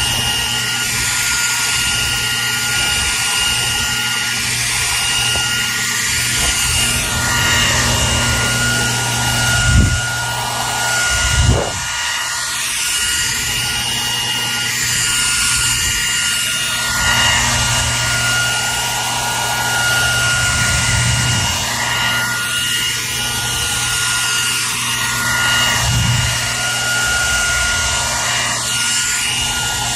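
Hair dryer running steadily: a loud rush of air with a constant motor whine and hum, the hiss swelling and easing slowly. Two brief low thumps come about a third of the way in.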